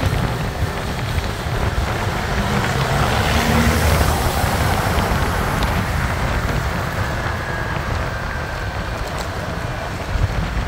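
Road noise from a moving motorcycle in traffic: wind rushing over the microphone on top of engine and traffic rumble. It swells louder a few seconds in, then eases off.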